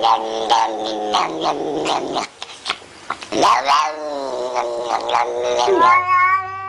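A cat yowling in long, wavering, drawn-out wails, three in a row, the last one starting over a steady low hum.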